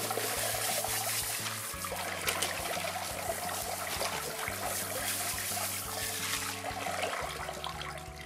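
Water from a garden hose spray nozzle hissing and splashing as it rinses out a black plastic rock tumbler barrel and the tumbled stones in a plastic colander, washing away the grit between tumbling stages.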